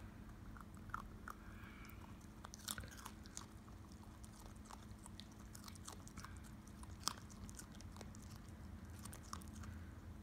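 West Highland white terrier puppy gnawing and crunching on a raw carrot: faint, irregular crunches and clicks, the sharpest about seven seconds in, over a low steady hum.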